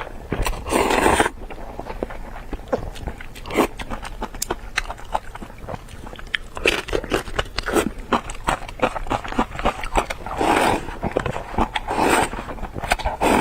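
Close-miked eating: a run of wet chewing clicks, with a few louder, longer bursts about a second in and again near the end.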